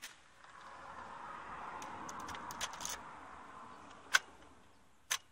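A rushing noise that swells and fades over about four seconds, then two sharp clicks near the end as the ignition key is handled at the steering column of a Mitsubishi Fuso Super Great truck cab, before the engine is started.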